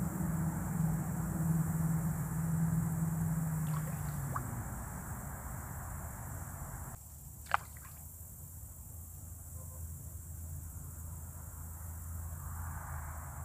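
Quiet pond-side outdoor background with a steady low hum that drops away about seven seconds in. Shortly after comes a single sharp tick or small plop.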